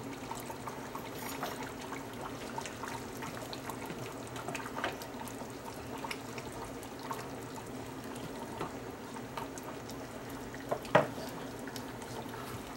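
A stainless steel pot of goat meat and tamarind soup simmering, with many small bubble pops over a steady low hum, and a black ladle stirring through the broth. A single sharp knock comes about eleven seconds in.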